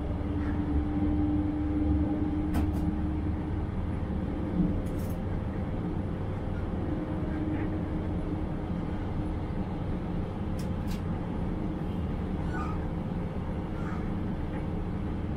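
Diesel regional railcar running along the line, heard from the driver's cab: a steady rumble of wheels on the rails under a steady engine hum, with a few light clicks and one small thump about four and a half seconds in.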